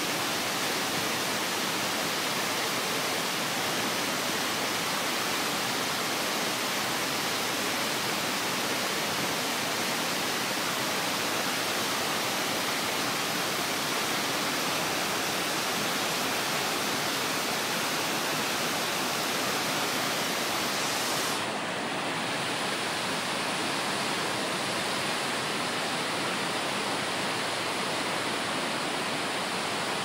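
Waterfall water pouring down a rock face and crashing onto boulders and a pool: a steady, loud rushing. About two-thirds of the way through it turns slightly duller as the top end falls away.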